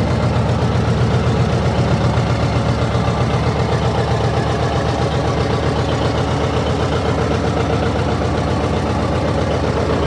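Tractor engine idling steadily, with an even, fast pulsing beat.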